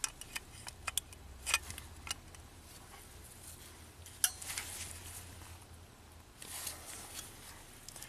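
Scattered metal clicks and scrapes of locking pliers gripping and bending the small metal mounting tab of a crankshaft position sensor, with the sharpest click a little over four seconds in.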